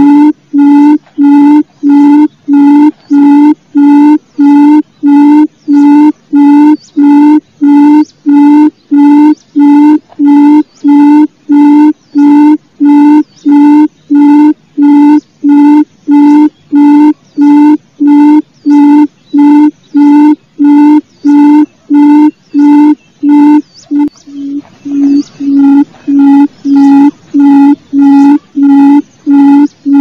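Barred buttonquail (gemek) calling, a low hoot repeated over and over at about one and a half hoots a second, with a brief stumble in the rhythm near the end.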